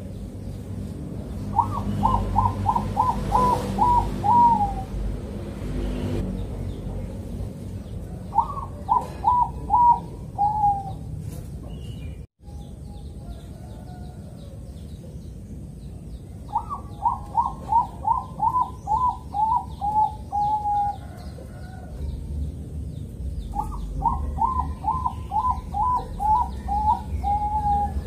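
Caged zebra dove (Bangkok-bred perkutut) cooing: four phrases, each a quick run of short repeated coo notes ending on a lower, longer note.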